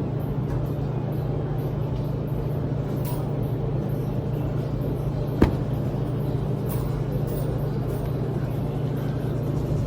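Steady low drone of laundromat machines running, with one sharp click about five and a half seconds in.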